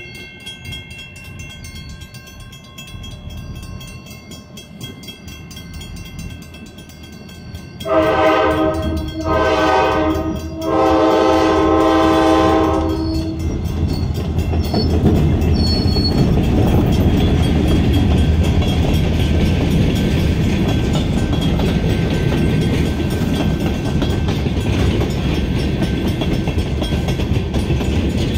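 A railroad crossing bell rings. About eight seconds in, a diesel locomotive's horn sounds three blasts, the last held longest. The Arkansas & Oklahoma Railroad freight train of tank cars then rumbles steadily past over the crossing.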